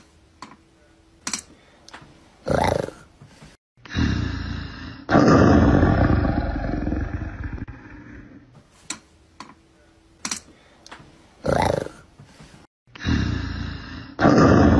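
A loud animal roar, the TikTok roar-trend sound, plays twice. Each time a few faint clicks and a short pitched sound come first, then the roar starts, about four seconds in and again near the end, and lasts a few seconds.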